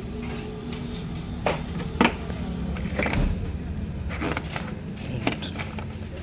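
Toyota Vitz's 1KR three-cylinder engine idling steadily after a full tune-up, with about five sharp clicks and knocks over it, the loudest about two seconds in.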